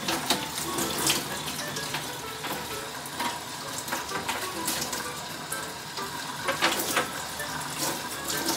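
Kitchen tap running into a metal sink as a wax gourd (winter melon) is rinsed and turned in the stream, with a few knocks and splashes as it is handled.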